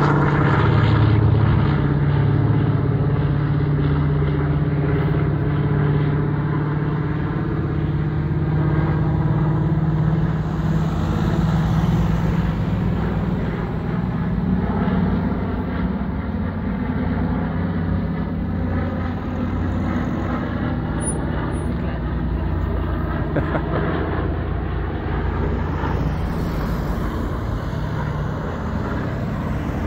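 Douglas DC-3's twin radial piston engines droning steadily as the airliner flies past, slowly fading over the stretch.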